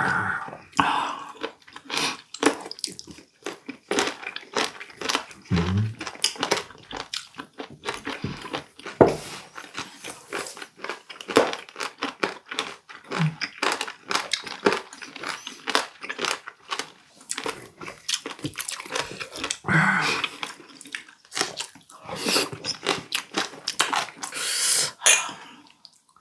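Close-miked chewing of warty sea squirt (omandungi): a dense run of crunchy, wet bites and chews with many sharp crackles.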